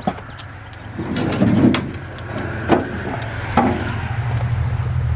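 Low rumble of a vehicle passing on the nearby road, building from about a second in and holding steady, with four or five sharp knocks and crunches of footsteps on debris.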